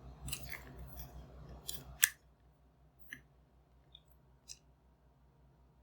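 Quick sharp clicks and snips from small plastic headband parts being handled. A burst of them comes in the first two seconds, the loudest about two seconds in, then a few faint single clicks.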